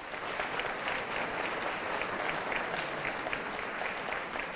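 Audience applauding: many hands clapping together at an even strength.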